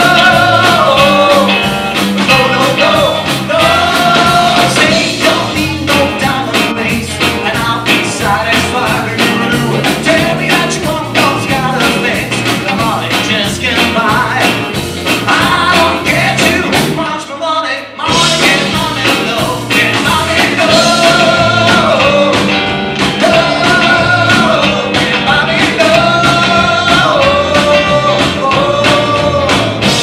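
Live 1960s-style rock and roll from a four-piece guitar band: electric guitars, bass and drum kit with a sung melody over a steady beat. The music drops out briefly about halfway through, then comes back in.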